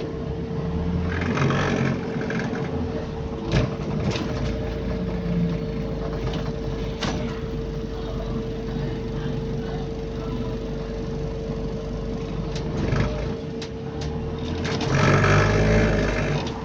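Cabin of a moving bus: the drivetrain runs with a steady whine while the body and fittings rattle, with a few sharp knocks scattered through.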